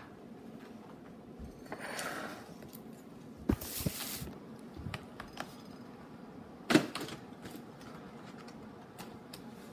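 Frozen pizza boxes being handled and pried at by hand: cardboard scraping and rustling, with a few knocks, the sharpest about two-thirds of the way in.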